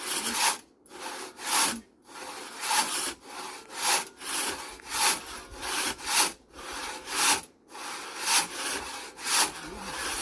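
Hand saw cutting through wood in steady back-and-forth strokes, about one and a half strokes a second, each a rasping scrape.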